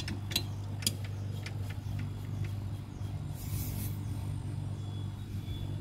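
Refrigerator compressor running with a steady low hum while refrigerant pressure is read on a manifold gauge set, in a Sanyo SR-F518 two-door fridge that cools poorly. A few light clicks come near the start, and a short hiss comes about three and a half seconds in.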